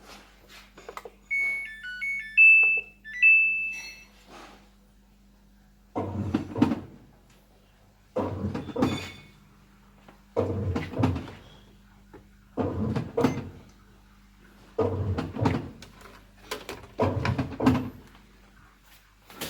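A Samsung washing machine on test after its water inlet solenoid valve was replaced. Its control panel gives a few short beeps in the first few seconds. Then comes a run of six short mechanical bursts about two seconds apart, the drum being turned back and forth, over a steady low hum.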